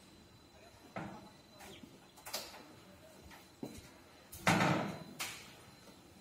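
Sheet-metal tablet charging cart being turned on its casters: a string of knocks and rattles from its metal body and hinged doors. The loudest is a heavier clunk about four and a half seconds in.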